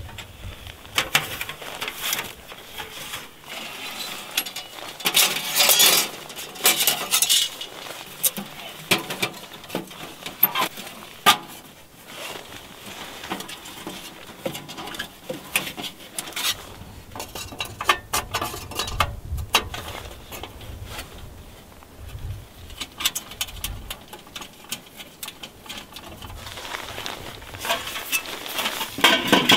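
Thin sheet-metal panels of a folding camp wood stove clinking, clanking and sliding against each other as the stove is put together by hand: irregular light metallic clicks and rattles, thickest in the first several seconds and again near the end.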